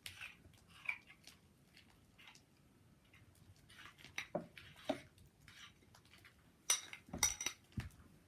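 A spoon stirring slime in a bowl, knocking and scraping against the bowl in scattered clicks, with a quick cluster of louder strikes about seven seconds in.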